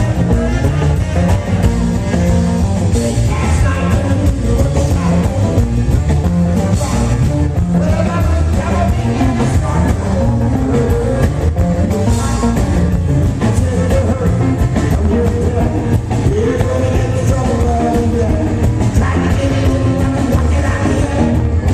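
Live rock and roll band playing with a steady beat while a man sings.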